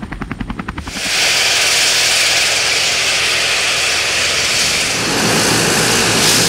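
Engines of taxiing aircraft, first a twin-engine Aero Commander bird-dog plane and then a CL-415 water bomber with its turboprops, running with a loud steady hiss and whine that starts abruptly about a second in. A deeper engine sound joins near the end. The first second holds a rapid rhythmic pulsing instead.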